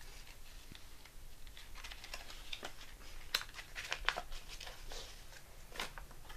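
Quiet rustling and light clicks of paper playing cards being handled, with a few sharper snaps about halfway through and again near the end.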